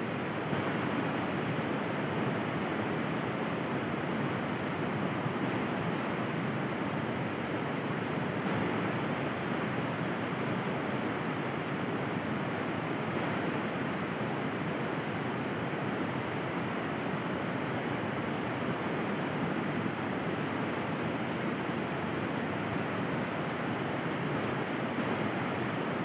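River water flowing, a steady, even rush with no breaks or changes.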